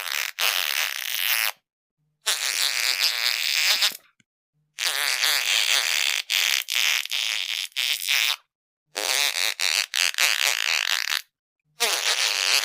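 A run of fart sounds, about five separate raspy bursts each lasting one to three seconds, cut apart by moments of dead silence, with little low rumble in them.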